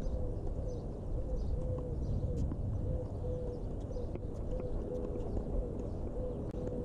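Steady low wind rumble on the microphone, with a short low-pitched note repeating about twice a second over it and a few faint knocks.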